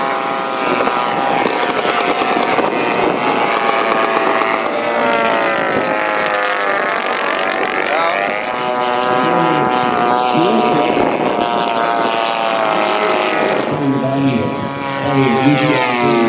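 Propeller engines of giant-scale radio-controlled warbird models flying past, several at once, their pitch sliding up and then falling as each plane passes.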